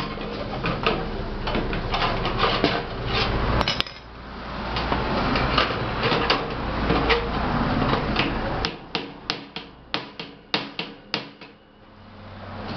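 Screwdriver and metal tools working against the sheet-metal body of an electric oven, scraping and rattling as the man levers at the door's hinge pin to try to straighten the warped door. In the last few seconds comes a quick run of about ten sharp metal knocks.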